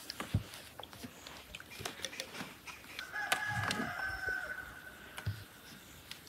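A rooster crows once about three seconds in, one held call of about a second. Around it, light clicks and a few dull knocks as large glass jars are handled, wiped with a cloth and set down on a table.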